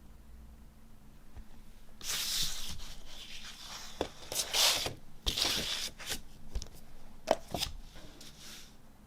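Hands handling a vinyl LP's paper and card packaging: rustling and sliding that starts about two seconds in, with a few sharp taps, then dies down to occasional light rustles.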